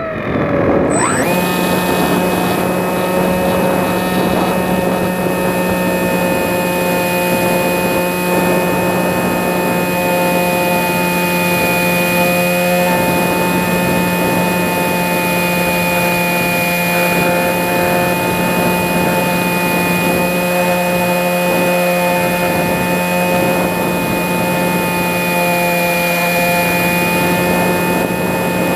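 Electric motor and propeller of a Sky Eye FPV glider in flight: a steady whine with several tones over a rushing hiss. It comes back up to speed about a second in and then holds an even pitch.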